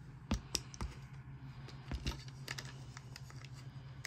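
Scattered light clicks, taps and scratches as a plastic back scratcher is worked over a cat and knocks against a vinyl armchair while the cat grabs at it, over a steady low hum.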